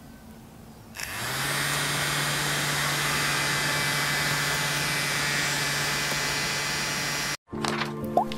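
A small electric fan motor running steadily and blowing air, a rushing hiss over a low hum. It starts about a second in and cuts off abruptly near the end.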